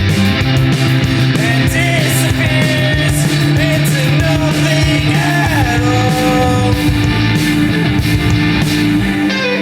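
Loud rock song played by a band: sustained distorted electric guitar chords over drums with regular cymbal hits, and a sliding melodic line in the middle.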